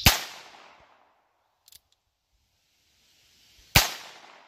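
Two .22 LR shots from a short-barrelled Heritage Barkeep single-action revolver firing CCI Mini-Mag rounds, about three and a half seconds apart. After each shot the echo is cut off abruptly as the microphone mutes. A faint click falls between the shots.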